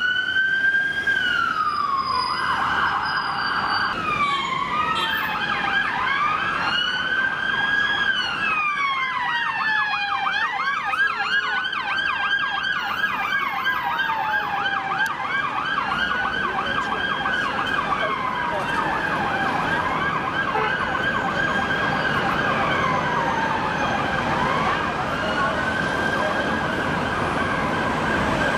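Police van sirens: a slow wail rising and falling every few seconds, with a fast yelp sounding over it from about five seconds in, as more than one siren sounds at once. A brief rapid warble comes in near the start.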